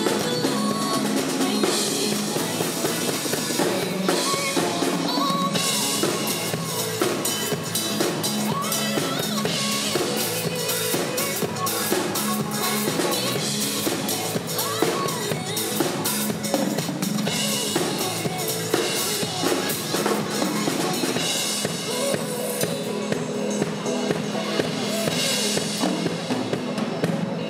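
SJC acoustic drum kit played live with sticks, with a steady beat of bass drum, snare and cymbals, over a pop backing track.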